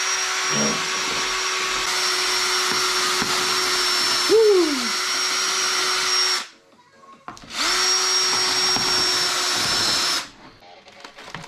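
An electric power tool runs at a steady pitch for about six seconds, stops, starts again a second later and runs for about three more seconds. A short falling squeal comes about four seconds in.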